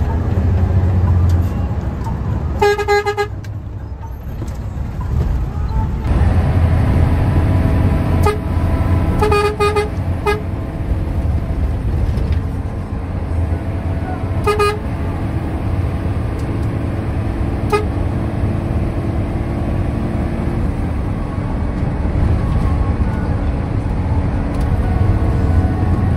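Cabin sound of a front-engined Hino AK intercity bus running at speed: a steady low engine and road rumble. A vehicle horn sounds over it: one blast about three seconds in, a quick series of short toots around ten seconds, and another blast near fifteen seconds.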